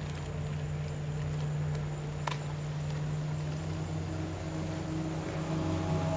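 Boat motor running steadily with a low, even hum, growing a little louder near the end. A single sharp click sounds a little over two seconds in.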